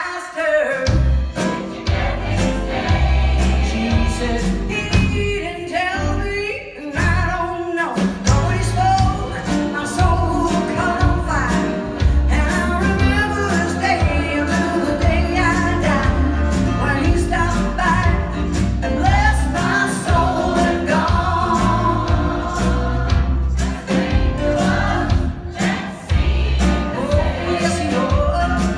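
A choir and lead singer performing a gospel-tinged song with a band: a steady bass line and drum beat under the voices.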